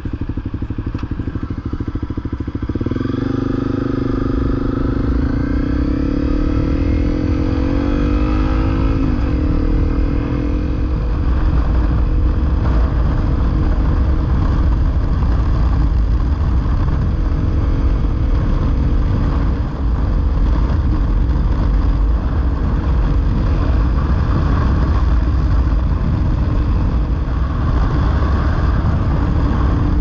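Honda CRF250L's single-cylinder four-stroke engine running under way. Its pitch climbs over the first several seconds as it picks up speed, then holds steady, over a heavy low rumble.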